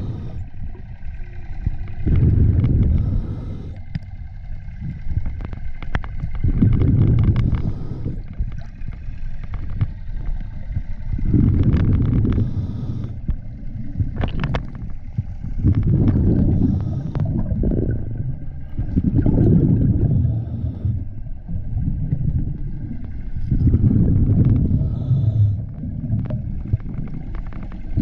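A diver breathing through a diving regulator underwater: a loud burst of exhaled bubbles rumbles out about every four to five seconds, with quieter stretches between breaths.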